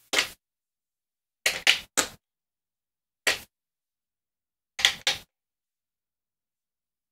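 About seven short, sharp clicks at irregular intervals, with silence between them, as the plastic buttons of a Blipblox toy synthesizer are pressed to change its volume-limiting setting.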